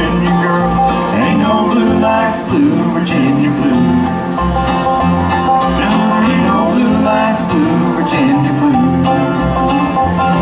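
Live bluegrass band playing: plucked acoustic string instruments with a bass line stepping along underneath.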